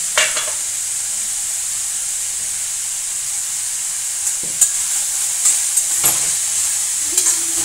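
Shredded cabbage, carrot, capsicum and onion sizzling steadily in oil in a steel kadhai on high flame. In the second half a metal spatula clicks and scrapes against the pan a few times as the filling is stirred.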